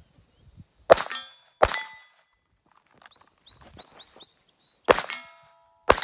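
.22 rimfire pistol firing four shots in two pairs: two about a second in, then two about a second apart near the end. Each shot is followed by the ring of a hit steel target plate.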